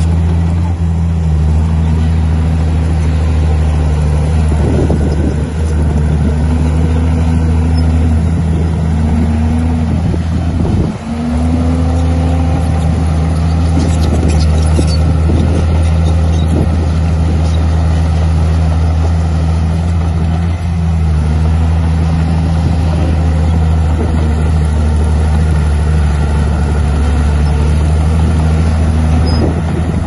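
Komatsu D51 bulldozer's diesel engine running loud and steady under load, its revs sagging and picking up again several times as it pushes soil, with a short dip about eleven seconds in.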